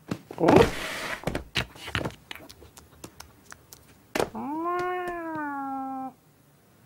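Cartoon sound effects: a short scuffling burst and a run of light taps and knocks, then, about four seconds in, one long drawn-out meow of about two seconds that sags in pitch at the end.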